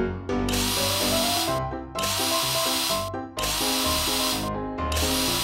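Power-drill sound effect running in four bursts of about a second each, over background music with steady notes.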